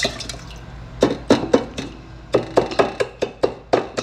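Wooden spoon chopping and stirring through seasoned liquid in a stainless steel pot, breaking up clumped rice seasoning: a run of quick wet strokes starting about a second in, about four a second.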